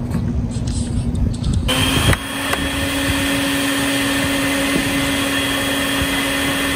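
Bucket-top wet/dry shop vacuum switching on about two seconds in and then running with a steady whine and rush of air, used as a blower to push smoke from a smoke canister in the bucket into a plumbing vent stack for a smoke test.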